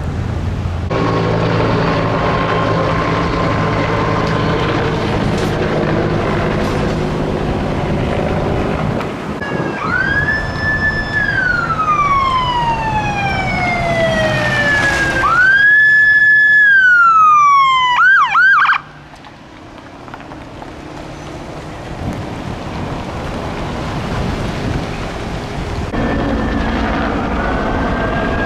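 Emergency vehicle's electronic siren: a wail that rises, holds and slowly falls, then rises again and breaks into a few fast yelps before cutting off suddenly. Before it, steady engine and traffic noise; near the end another siren starts to rise.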